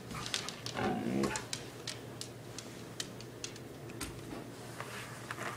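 A Siberian husky gives a short whine about a second in, amid scattered light clicks and taps.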